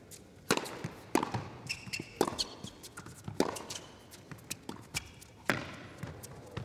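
Tennis rally on an indoor hard court: sharp racquet strikes and ball bounces about every second, with short high squeaks from players' shoes between the hits.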